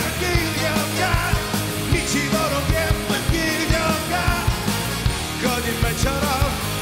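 Live pop-rock band playing, with drums, electric guitar, bass and keyboards keeping a steady beat, while a male vocalist sings the chorus over it.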